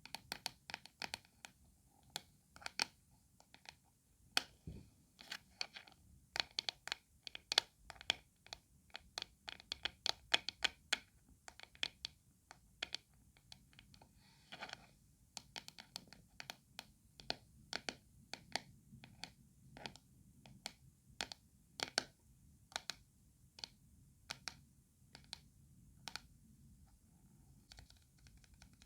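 Close-up ASMR tapping and scratching on a hard object: a long run of irregular sharp taps, thick in the first half and sparser later, with short gaps between.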